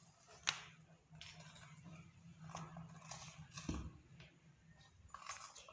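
Beagle puppy chewing and biting into a raw bitter melon: a series of scattered crunchy bites, the sharpest about half a second in.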